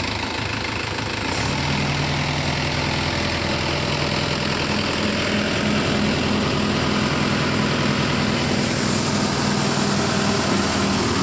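Mahindra tractor's diesel engine running hard as it tries to pull a loaded trailer whose wheel is bogged in soft soil; about a second in the engine note rises and gets louder, then holds steady.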